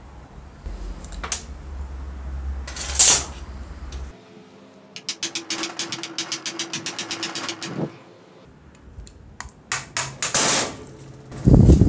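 Metal parts of a drill gearbox being handled and worked by hand, with a sharp scrape about three seconds in, then a run of rapid, even ratchet-like clicking, about seven clicks a second for nearly three seconds, and scattered knocks ending in a loud clunk.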